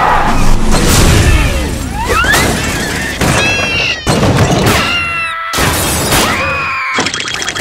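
Cartoon slapstick crash: a small car flips and tumbles with several crashing impacts, while cartoon characters shriek and yell in high, sliding voices. There is a quick rising whistle about two seconds in, all over music.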